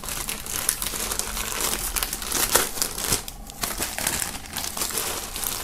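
Clear plastic film crinkling and crackling as it is pulled and peeled off a folded T-shirt by hand, in a rapid run of small crackles.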